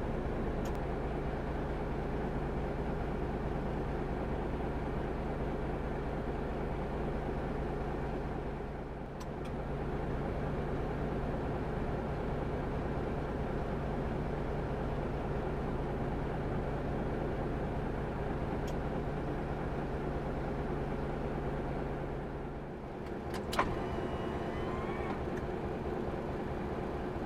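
Large truck's diesel engine idling steadily, heard from inside the cab. A single sharp click sounds about three-quarters of the way through.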